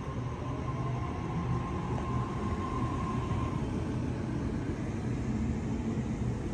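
Sydney Trains Waratah double-deck electric train rolling along the platform, a steady low rumble of wheels and running gear with a thin high whine that fades out about three and a half seconds in.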